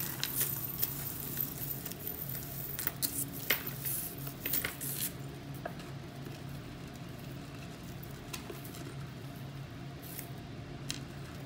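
Tangled metal chains and beaded necklaces clicking and rustling as they are handled and pulled apart, with many small clicks for about the first five seconds, then fewer and fainter. A steady low hum runs underneath.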